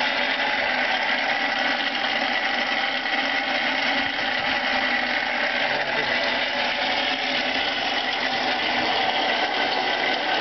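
Champion 400 hand-cranked forge blower running steadily, its gears whirring as it drives air through the tuyere into the coal fire.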